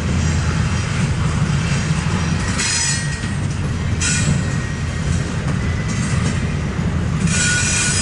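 Double-stack intermodal freight train rolling past: a steady low rumble of steel wheels on rail, broken by a few short high-pitched wheel squeals, the longest near the end.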